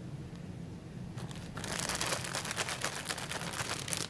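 Plastic bag holding chicken legs in seasoned flour being shaken to coat them. The plastic crinkles rapidly, starting about a second in and getting louder.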